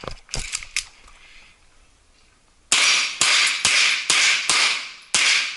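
A CZ 85 9mm pistol fires six shots in quick succession, about two a second, starting about halfway in. A few lighter knocks come first.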